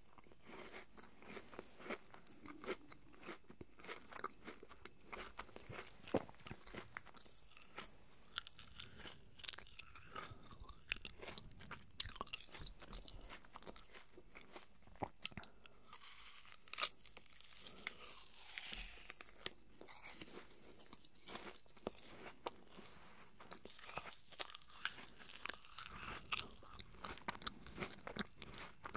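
Close-miked eating of juicy apple slices: crisp bites and crunching chews, heard as many sharp, irregular crunches.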